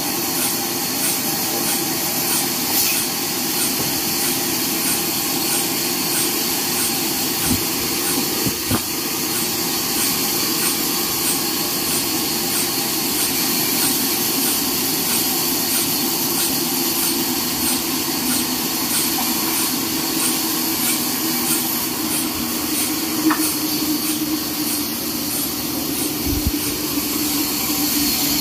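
Horizontal band sawmill running and sawing a long neem log: a steady, hissing machine noise from the blade and motor, with a faint regular tick a little more than once a second.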